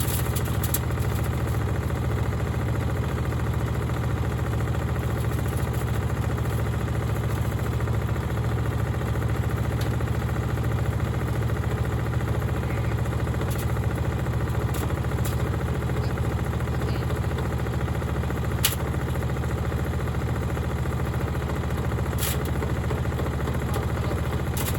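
Gorenje washing machine running with a steady low hum, with a few sharp clicks scattered through it.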